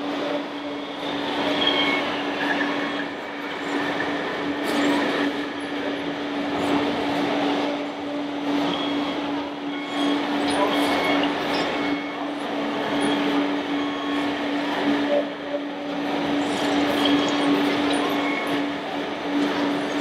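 Busy exhibition-hall din: a crowd chattering, with a steady low drone running throughout and a few faint short high beeps.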